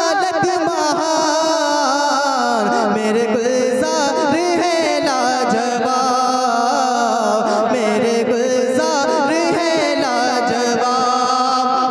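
A man singing a naat into a microphone, unaccompanied. He draws out long notes that waver and slide in pitch.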